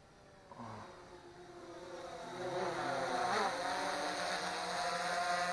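DJI Phantom quadcopter's propellers whirring as the drone flies back in overhead. The whirring grows louder over the first couple of seconds, its pitch shifts briefly about three seconds in, and it then holds a steady buzz of several pitches at once.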